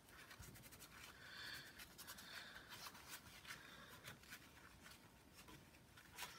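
Faint rubbing of a wipe over the CPU, cleaning off the old dried thermal paste, with small scattered ticks.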